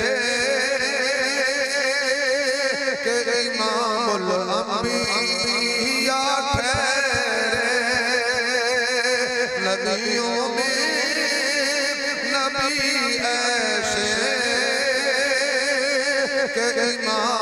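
A man's voice chanting a verse of devotional Urdu-Punjabi poetry in a melodic, ornamented line with heavy vibrato. The voice is amplified through a microphone.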